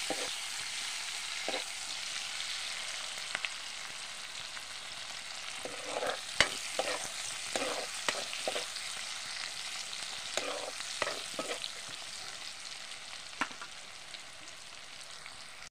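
Sliced onions and green chillies sizzling in hot oil in a black metal kadai, with a metal ladle scraping and clinking against the pan as they are stirred. The sizzle slowly grows fainter.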